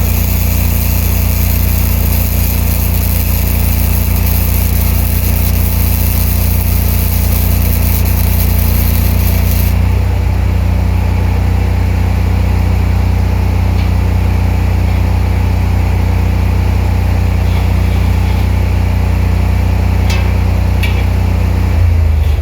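Engine of a Ranger engine-driven welder running steadily while a spool-gun MIG arc hisses over it. The arc hiss stops about ten seconds in and the engine keeps running. The engine's note changes just before the end.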